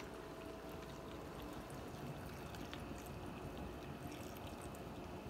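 Water poured in a thin, steady stream from a plastic measuring cup into a pan of fish and cut potatoes, trickling and splashing softly.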